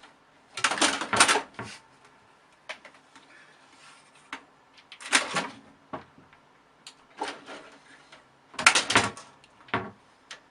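Short bursts of scratching, rustling and clattering noises in about five clusters, with quiet stretches between.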